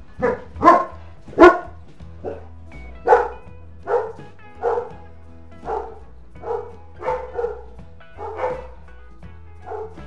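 Reamer of a Victorinox Swiss Champ pocket knife being twisted back and forth into hard ash wood, squeaking with each turn: about a dozen short, loud squeals, roughly one a second, the loudest in the first second and a half.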